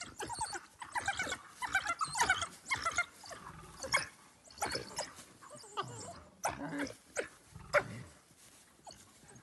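A pack of African wild dogs calling: many short, high-pitched calls in quick succession, the excited chatter of the pack mobbing a lioness.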